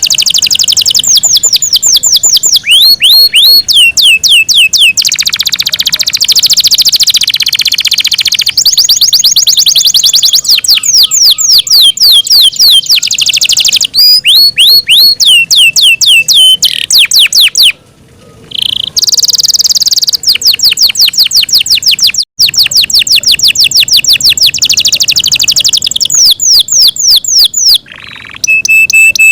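Yorkshire canary singing a long, loud song of rapid repeated trills and fast sweeping notes, phrase after phrase, with a short pause about 18 seconds in.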